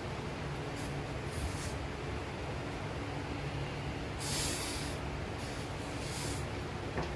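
A motor-driven shop grinding machine running with a steady hum, with several short hissing bursts as the edge of the cloud lift material is trimmed against it, the longest and loudest just past halfway. A single click near the end.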